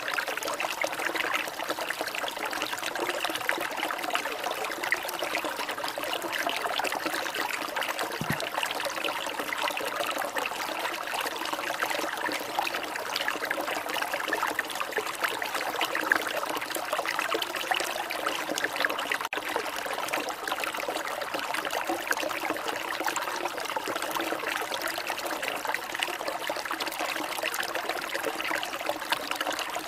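Water trickling and splashing steadily, a continuous fine patter without pauses.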